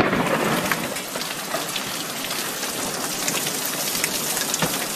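Heavy rain falling and hitting hard surfaces: a steady hiss with the patter of many individual drops.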